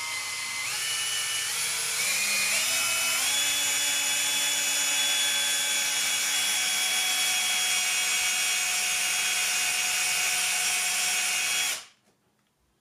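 Handheld electric drill boring a mast hole into a hard wooden strip through a 2 mm pilot hole, with a bit that is no longer sharp. Its motor whine climbs in pitch in a few steps over the first three seconds as it speeds up, then runs steady and cuts off suddenly near the end.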